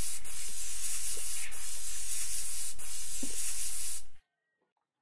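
Aerosol spray-paint can spraying paint in one continuous hiss, which cuts off sharply about four seconds in.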